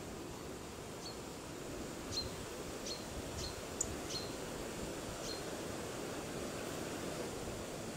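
Steady outdoor background hiss with a bird's short, high call notes, about seven of them scattered through the first half, each a quick downward chirp.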